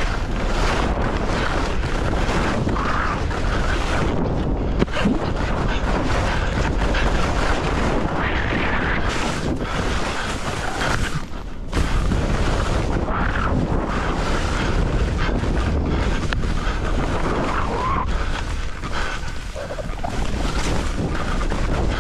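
Wind rushing and buffeting over the microphone of a skier's camera during a downhill run, mixed with the hiss of skis sliding over snow. There is a brief lull about eleven seconds in.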